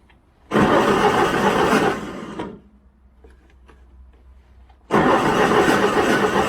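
Canycom Razorback CMX186H mower's engine being started on choke in two tries. The first crank lasts about two seconds, then stops. The second begins about five seconds in and keeps going.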